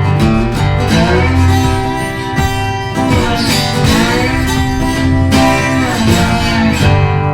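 Background country-style music with strummed acoustic guitar.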